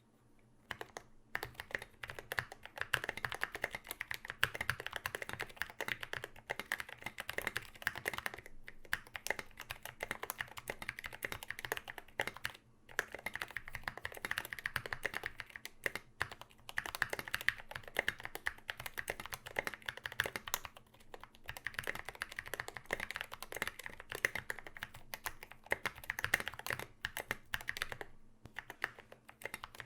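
Typing on a KBD75v2 mechanical keyboard with Zealios v2 65 g tactile switches, an aluminium plate and SA doubleshot ABS keycaps: fast, continuous runs of keystrokes starting about a second in, broken by a few short pauses.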